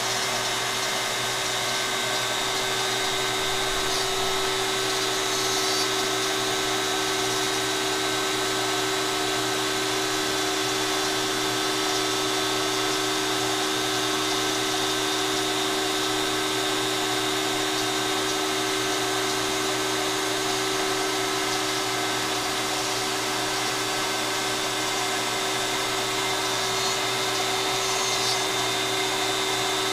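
Trim router spindle on a LowRider CNC running steadily at speed while the machine cuts, a constant motor whine made of several fixed tones with no change in pitch or level.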